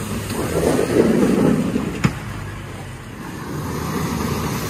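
Pickup truck with a front plow blade pushing heavy snow, its engine running and the snow rushing off the blade as it passes. A single sharp knock about two seconds in.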